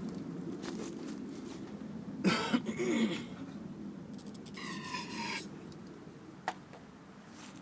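A man coughs once, about two seconds in, over faint handling noise. A short, high pitched sound follows about five seconds in.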